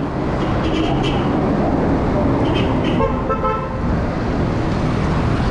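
Road traffic noise and wind on the microphone during a bicycle ride on a city road, with a vehicle horn tooting about three seconds in.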